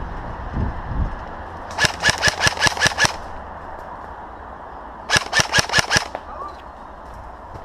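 Airsoft gun firing two quick bursts of rapid shots, about seven shots and then, a couple of seconds later, about six, at roughly five to six shots a second.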